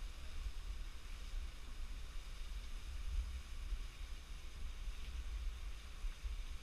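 Wind buffeting the microphone in a gusting low rumble, over a steady hiss of falling water from a small waterfall.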